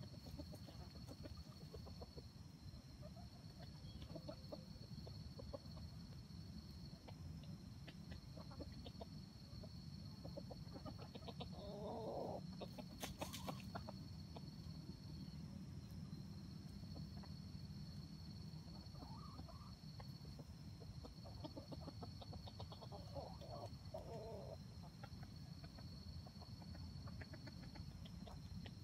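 Red junglefowl clucking softly while foraging, in short bouts about twelve seconds in and again around twenty seconds in, with a single sharp click near the middle. A steady high insect drone pulses behind.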